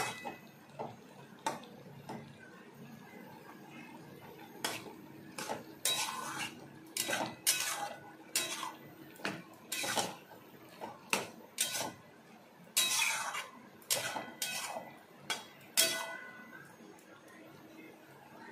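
Flat metal spatula scraping and clicking against a metal wok in irregular strokes while stirring a thick, moist vegetable curry. It thins out and stops a couple of seconds before the end.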